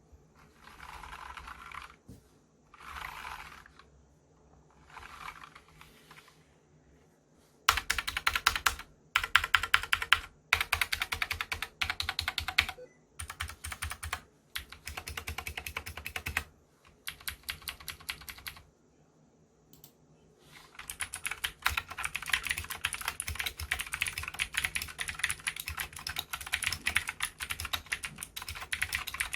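Typing on a Cox CK87 mechanical keyboard with Gateron Green clicky switches: fast runs of sharp key clicks. It starts with three short, softer bursts, then comes in louder, faster bursts with gaps between them, and from about two-thirds of the way in becomes nearly continuous.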